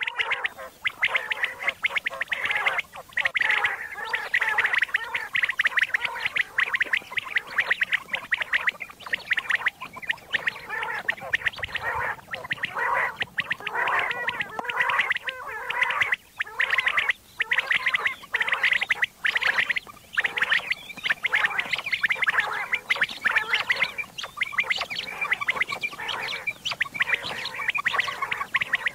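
Recorded common quail calls used as a quail-hunting lure: a dense, rapid chattering that runs almost without a break, pausing briefly a few times.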